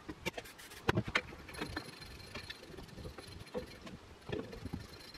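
Scattered light clicks and knocks as a metal locking collar is handled and fitted onto a coilover carrying an air-spring sleeve. The sharpest clicks come about a second in.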